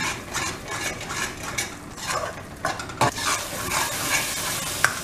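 A metal spoon scraping and stirring ground masala with dry spices around a metal pan, the paste sizzling in hot oil as the spices roast; the sizzle grows louder about three seconds in, and the spoon gives a sharp clink against the pan near the end.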